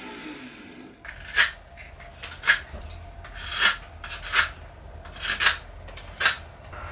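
The miter saw's blade winds down in a falling whine just at the start, then a hand file rasps in short, separate strokes, about eight of them at an uneven pace.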